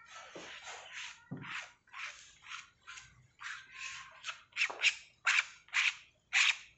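Rhythmic scraping strokes, about two a second, growing louder in the second half.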